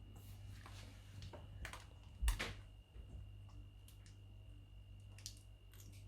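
Indian ringneck parrot's beak nibbling and crunching broccoli: scattered irregular soft clicks, with one louder knock a little over two seconds in. A steady low hum runs underneath.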